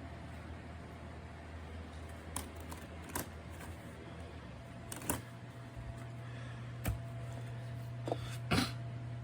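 Small USB mini fan running with a steady low hum that steps up in pitch a little over halfway through, the fan moving up a speed setting, with several short clicks and knocks scattered through.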